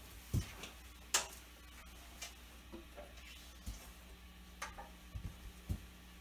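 Handling noise as a chest-worn metal washboard and a shovel guitar are strapped on and picked up: scattered, irregular knocks and clicks, some dull thumps and some sharp ticks, over a faint steady hum.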